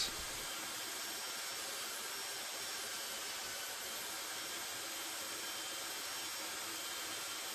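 Electric belt sander, mounted upside down on the bench, running steadily with nothing held against the belt.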